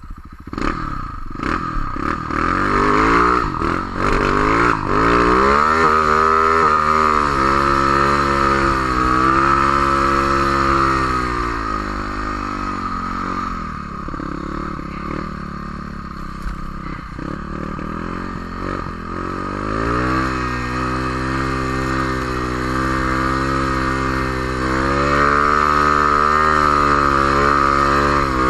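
Snowmobile engine revving up over the first few seconds and holding high revs, easing off for several seconds in the middle, then revving up again and holding.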